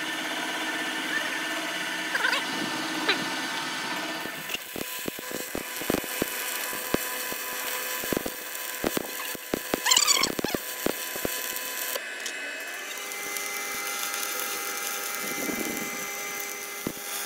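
Stick (arc) welding on a thick steel pipe: the electrode's arc crackling and popping irregularly from about four seconds in, over a steady hum. A brief high chirp sounds near the middle.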